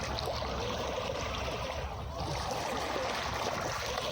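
Calm sea waves washing steadily on a beach, with a brief lull about halfway.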